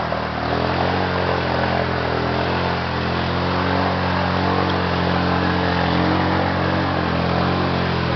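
Quad bike (ATV) engine running at fairly steady, moderate revs as it pushes through a muddy, water-filled rut.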